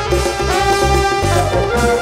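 Live band playing a groove: trumpet holding long notes over a repeating bass line and hand drums.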